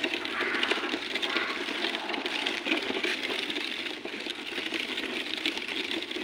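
Hard plastic wheels of a child's ride-on toy car rattling and clattering steadily as it is pushed over concrete paving blocks.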